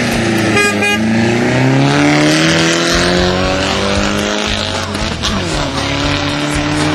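Rally car's 420A 2.0-litre four-cylinder engine accelerating hard away from the start on dirt, revs climbing for the first couple of seconds. About five seconds in the revs drop suddenly at a gear change and start to climb again.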